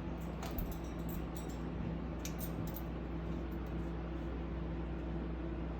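A Goffin's cockatoo drinking, with a few faint, soft clicks from its beak in the first three seconds over a steady low electrical hum.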